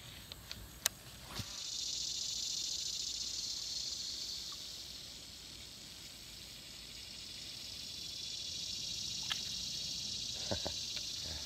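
Insect chorus: a high-pitched, steady buzz that comes in about a second and a half in, eases off midway and builds again. A few light clicks sound near the start and near the end.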